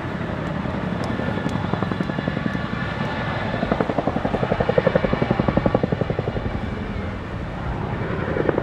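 RAF Boeing Chinook HC6A tandem-rotor helicopter flying overhead, its rotor blades beating in a fast, even chop that swells loudest around the middle.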